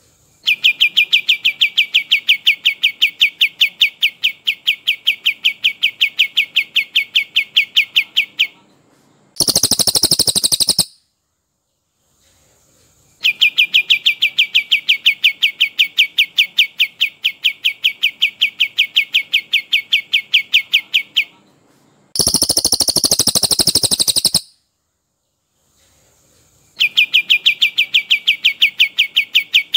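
Recorded songs of a brown cililin and a kapas tembak, taking turns. Long rolls of fast, evenly repeated high notes, each lasting about eight seconds, are twice broken by a short, higher, dense trill of about two seconds.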